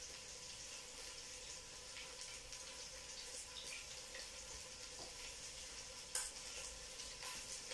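Faint, steady sizzle of chicken pieces frying in oil in a pot, with scattered small ticks and one sharp click about six seconds in.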